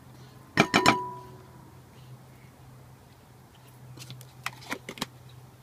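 A spatula knocked three times in quick succession against a glass mixing bowl, the glass ringing briefly, while sour cream is scraped into the bowl; a few lighter clicks follow a few seconds later.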